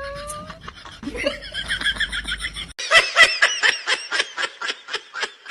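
High-pitched laughter in quick, rhythmic bursts. A new stretch starts abruptly about three seconds in at about four bursts a second, and it fades near the end.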